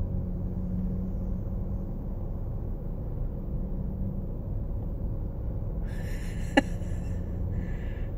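Steady low rumble of cars, heard from inside a parked car. About six seconds in comes a brief burst of higher noise with one sharp click, and a shorter burst follows near the end.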